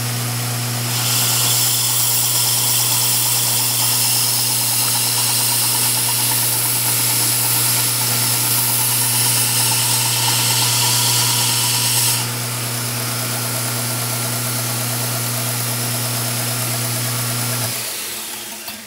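A 1x42-inch Kalamazoo belt grinder runs a linen belt charged with CBN paste, its motor humming steadily. From about a second in to about twelve seconds a steel knife blade is held against the belt, adding a bright, high hiss. Near the end the motor is switched off and the belt winds down to a stop.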